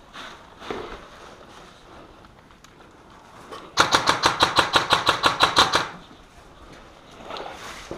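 Airsoft gun firing a rapid, evenly spaced burst of about sixteen shots over two seconds, starting nearly four seconds in.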